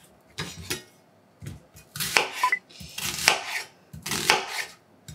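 Kitchen knife cutting onion on a cutting board, a sharp cut roughly once a second.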